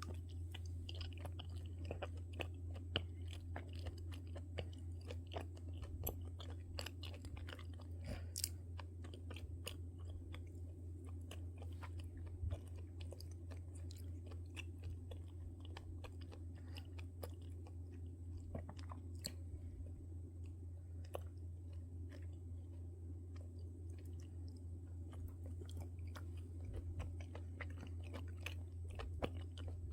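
A person chewing and biting crunchy food, with many small crunches and clicks throughout over a steady low hum.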